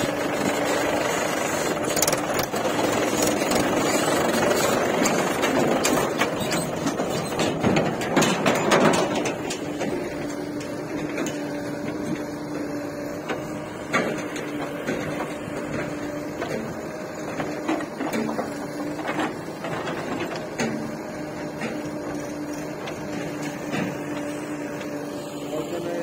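Diesel engines of Mahindra farm tractors and a backhoe loader running. A tractor pulling a trolley passes close for the first nine seconds or so, louder, then a steady engine hum continues with a few knocks as the backhoe works.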